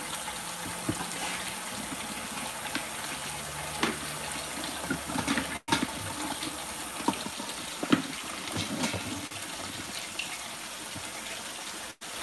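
Water running steadily from a kitchen tap, with a few light clicks and knocks of kitchenware.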